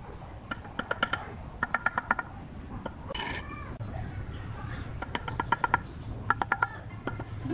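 Steel bricklaying trowel tapping bricks down into the mortar bed: four quick runs of four or five light taps, each with a short metallic ring.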